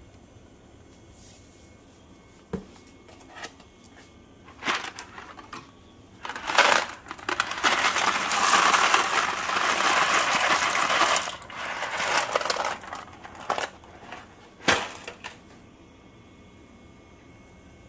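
Dry ziti pasta poured from a cardboard box into a pot of boiling water: a dense rattling rush of pasta lasting about four seconds midway through, with scattered clicks and knocks from handling the box and pot before and after.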